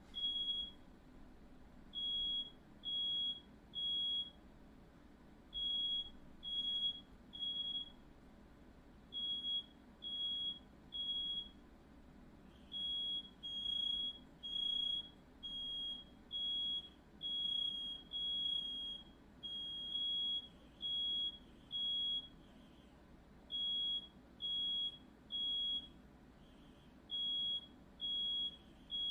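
Smoke alarm sounding in the three-beep fire pattern: a shrill high tone beeping three times, then a short pause, over and over. It has been set off by smoke from a firework lit indoors.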